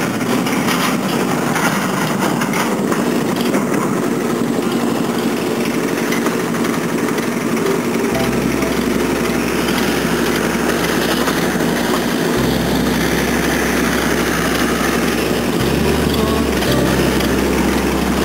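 Clay brick-making machine running steadily, a continuous engine-like drone with no break.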